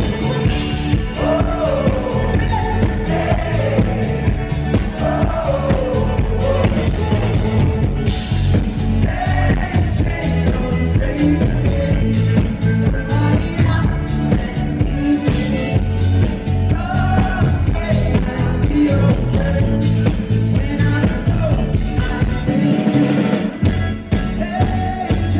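Live band playing a song over a PA, a male lead singer singing into a microphone over fiddle, drums and guitar, with a steady beat.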